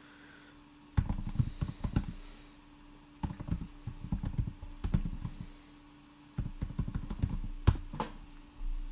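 Typing on a computer keyboard in three short runs of quick key clicks, with pauses between them and one sharper keystroke near the end.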